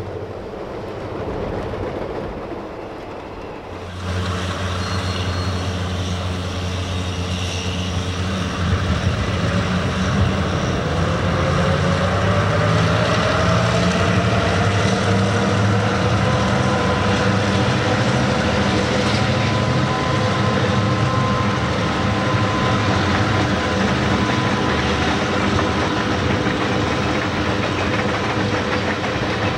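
A diesel-hauled passenger train passing: locomotive engines running steadily and the cars rolling on the rails. The sound is quieter at first, then jumps louder about four seconds in, with a faint tone that slowly rises and then holds.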